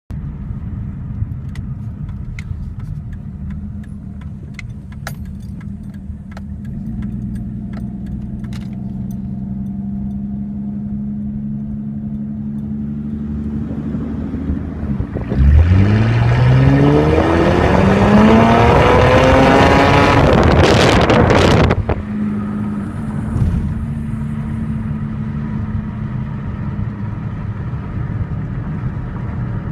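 2005 Ford Taurus SE's V6 engine heard from inside the cabin, first humming steadily while cruising. About halfway through it pulls hard under heavy acceleration for about six seconds, climbing in pitch and much louder, then drops off abruptly to a steady cruise again.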